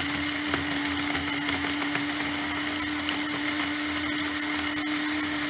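Electric blade coffee grinder running at a steady pitch, grinding whole black peppercorns and dried tangerine peel. The hard grains rattle against the blade and cup over the motor hum.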